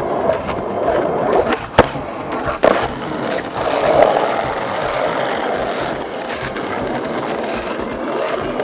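Skateboard wheels rolling over rough, cracked asphalt, a steady grinding roll, with two sharp knocks from the board about two and three seconds in.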